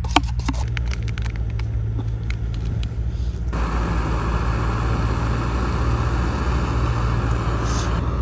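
Camping gas stove burner running with a steady low rumble. There are a few light clicks in the first second, and a steady hiss joins about three and a half seconds in, then cuts off near the end.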